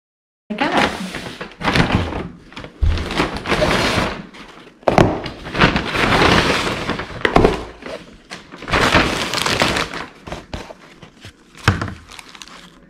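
Paper takeout bag rustling and crinkling as food is pulled out of it, with knocks of items set down on the table. It starts abruptly about half a second in.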